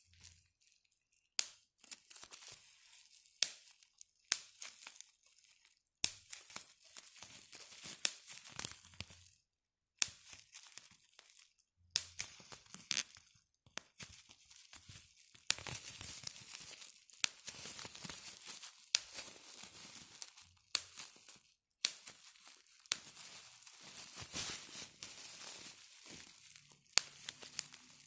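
Bubble wrap being squeezed by hand: irregular sharp pops of single bubbles, with crinkling plastic in between.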